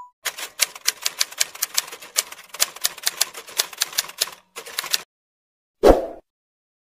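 Typewriter sound effect: a rapid run of key clacks, about seven a second, for about five seconds while text is typed out on screen, then a brief low whoosh near the end.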